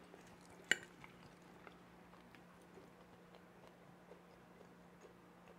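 A single light clink of a metal fork against a ceramic plate about a second in, then faint room tone with a steady low hum.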